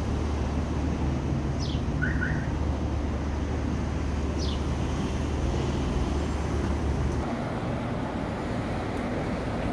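Road traffic on a town street: car engines and tyres passing in a steady rumble, with a few short high chirps over it.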